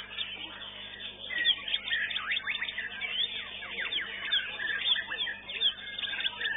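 White-rumped shamas singing in a songbird contest: a dense, unbroken stream of quick whistles and sharp chirps that rise and fall in pitch, several birds overlapping.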